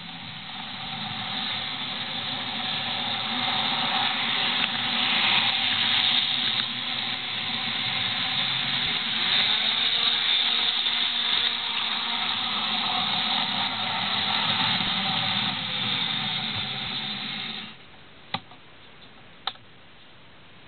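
Model railway train running along the track: a steady whirring rush of its small motor and wheels on the rails that builds up, then cuts off suddenly, followed by two sharp clicks.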